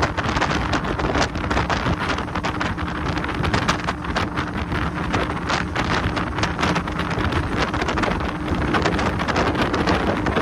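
Wind buffeting the microphone aboard a Ribeye 811 RIB running at speed, over the steady drone of the boat's engine and water rushing past the hull.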